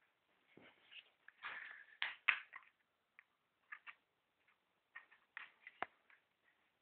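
Handling noise: scattered light knocks, taps and rustles as small objects are moved about on a wooden table, with one sharp click near the end.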